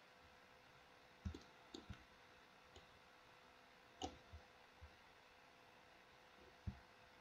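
Computer mouse clicking now and then over near silence, about eight short, irregularly spaced clicks.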